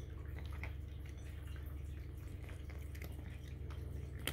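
A cat eating dry kibble: irregular small crunches and clicks as it picks up and chews the pieces, with a sharper click near the end, over a steady low hum.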